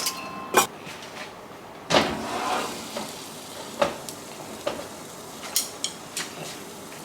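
Food sizzling in a frying pan, with a handful of sharp knocks and clinks from kitchen utensils, the loudest about two seconds in.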